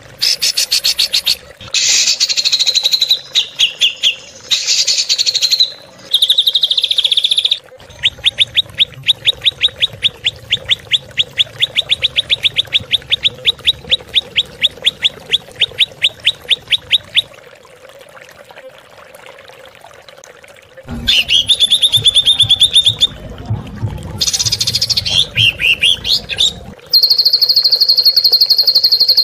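Recorded songbird calls spliced into a tutor track for training songbirds, made of harsh, fast 'shooting' notes. It has a long run of sharp repeated chips at about five a second, then rough scolding calls, then a rapid high trill near the end. Each segment starts and stops abruptly at the edits.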